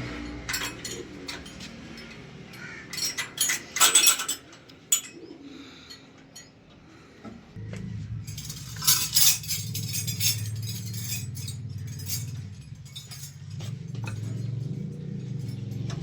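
Metal clinks and knocks of tools and parts being handled, loudest in the first few seconds and again around the middle. A steady low hum from a running motor drops out near the start and comes back about halfway through.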